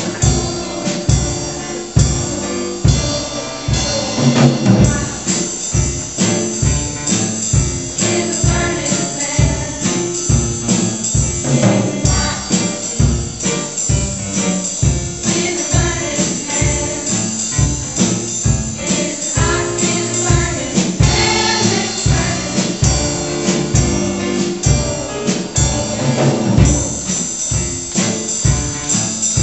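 Music with a steady beat and jingling percussion, with voices singing along.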